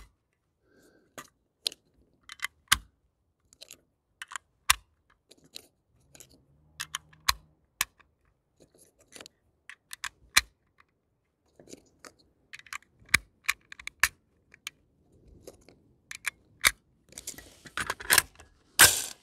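6.5 Grendel cartridges being pushed one by one into a metal AR-15 magazine: a string of sharp metallic clicks, roughly one a second, with a louder rattling clatter near the end.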